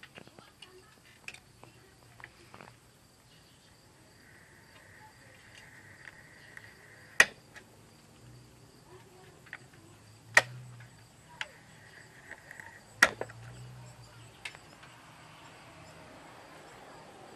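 Thick-jacketed appliance cord being drawn against a screw head set in a wooden board to strip it, with a faint scraping hiss as the insulation is cut and three sharp clicks among smaller ticks.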